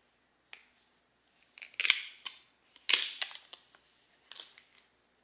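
Smartphone retail box and packaging being handled as the phone is taken out: a small click, then three short rustling, scraping bursts of cardboard and plastic.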